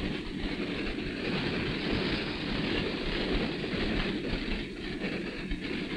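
A train running by: a steady rumbling, rolling noise, a little louder in the middle and easing slightly toward the end.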